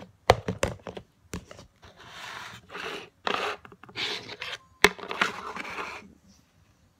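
Plastic modelling-dough tubs knocked together as they are stacked, then a plastic mould being scraped and rubbed against the table, with a sharp click a little before the end.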